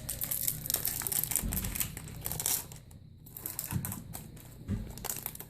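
Foil booster pack wrapper crinkling as it is handled, dense crackling for the first couple of seconds, then a few scattered crinkles.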